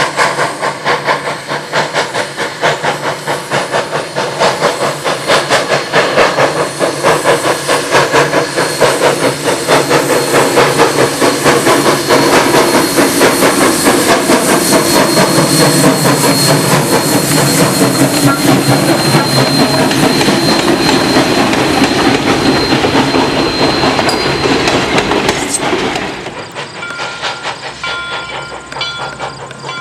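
Steam locomotive No. 136, Rogers-built in 1883, running under steam: a steady rhythm of exhaust chuffs over hissing steam. Near the end the sound cuts abruptly to a quieter one with a few steady tones.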